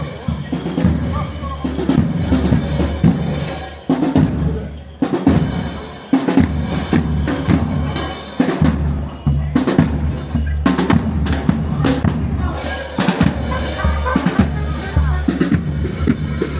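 Drums playing, with bass drum and snare drum strikes.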